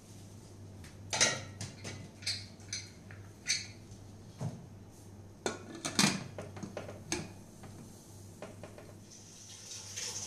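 Pressure cooker lid being fitted and closed: scattered metal clinks and knocks, the loudest about six seconds in. Near the end a steady hiss begins as steam starts to come up from the closed cooker.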